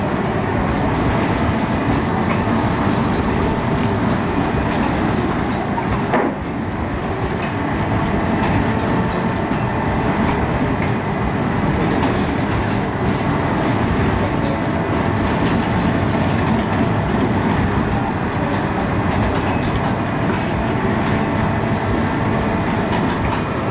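Spinning fairground ride running: a steady mechanical rumble with a faint whine, and one sharp knock about six seconds in.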